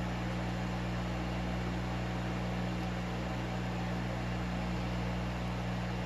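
Steady low electrical hum with an even hiss over it, from running equipment; no snips or knocks stand out.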